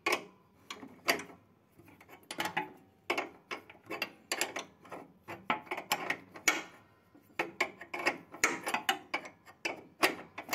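Spanner working a nut on a lawn tractor's threaded linkage rod: a series of sharp, irregular metal clicks and clinks, a few a second, with short pauses between clusters.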